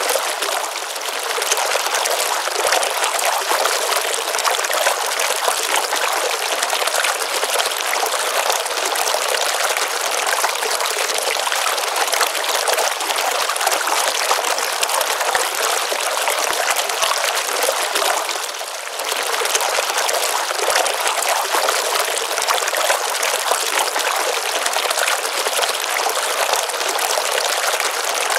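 Water pouring and trickling steadily into a pond. It dips briefly in level about a second in and again about two-thirds of the way through.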